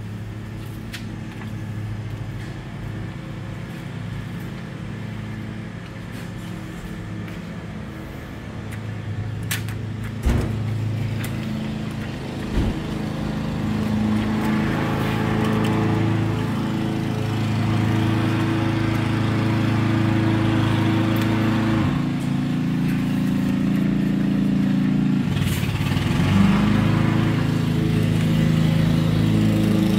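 An engine running steadily, getting louder about halfway through, with a few knocks.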